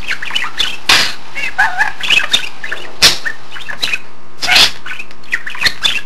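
Budgerigar chattering and warbling: a quick, continual run of chirps rising and falling in pitch, broken by a few sharp, louder calls.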